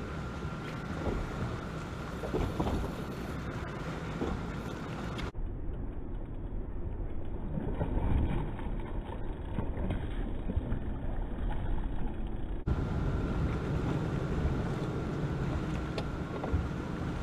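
Wind and water noise on a bass boat's bow, with a thin steady whine from the electric trolling motor in the first and last few seconds. A hooked largemouth bass splashes at the surface about halfway through.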